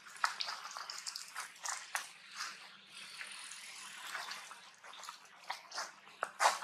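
Irregular rustling and crackling of dry leaves and twigs on the ground being stepped and moved through, with a few sharper crackles about six and a half seconds in.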